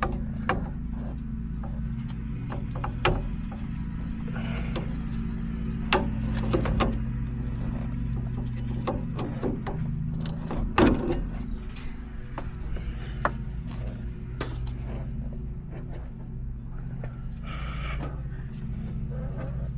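Hand snips cutting, with sharp clicks and snips at irregular intervals of a few seconds, the loudest about eleven seconds in, over a steady low machine hum.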